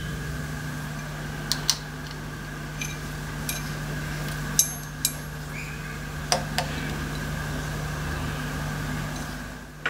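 A small machined metal engine part clicking and clinking against a lathe chuck as it is fitted by hand, about eight short, sharp clicks with a brief metallic ring, over a steady machine hum.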